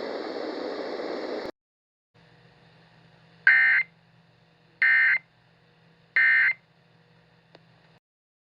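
Emergency Alert System digital data tones: three short, identical buzzy bursts about 1.3 seconds apart. These are the end-of-message code that closes an EAS alert. They follow a steady hiss that cuts off suddenly about a second and a half in.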